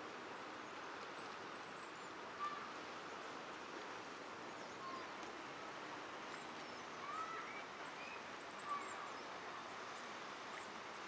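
Small birds chirping now and then, short rising and falling calls, over a steady faint outdoor hiss.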